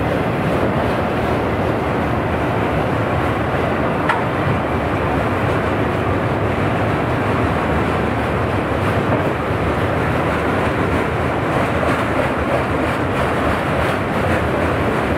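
A train passing close by, with a steady, loud noise of wheels running on the rails and a single short click about four seconds in.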